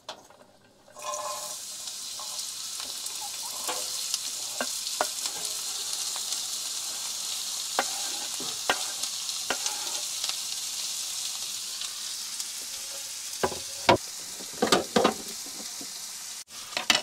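Chopped onion sizzling steadily as it hits hot avocado oil in a nonstick frying pan, the sizzle starting about a second in. A utensil scrapes and taps the onion off a wooden cutting board and against the pan, with a few louder knocks near the end.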